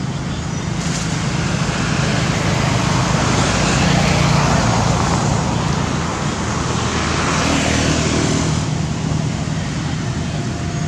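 Motor vehicle noise: a steady low engine hum under a rushing noise that swells and fades twice.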